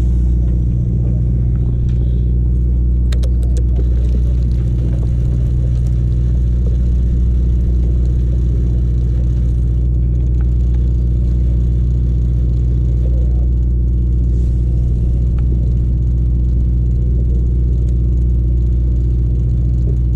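Sportfishing boat's engine running with a loud, steady low drone that holds the same pitch throughout.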